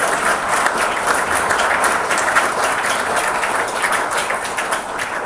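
Audience applauding: many hands clapping in a dense, even patter that eases slightly near the end.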